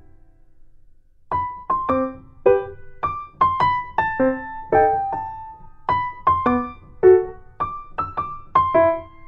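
Background music: a light electric-piano melody of short struck notes that comes in about a second in, after a brief pause.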